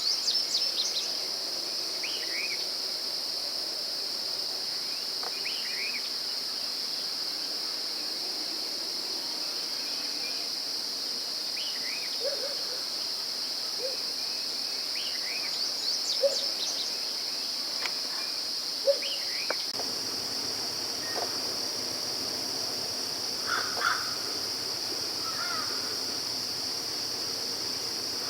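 A steady, high-pitched drone of insects in chorus, with short bird calls and chirps scattered through it every few seconds.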